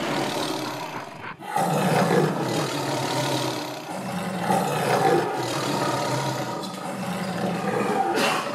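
Tiger roaring: long, loud roars that break off once about a second and a half in, then carry on.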